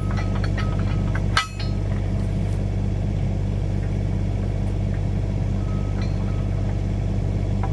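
Mini excavator's engine running steadily, with one sharp metallic clank about one and a half seconds in and a few lighter clicks.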